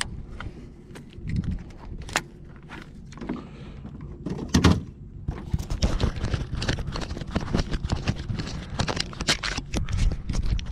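Fingers handling the camera right at the microphone: rubbing, with a string of clicks and knocks that grows dense in the second half, and a heavier thump a little under halfway through.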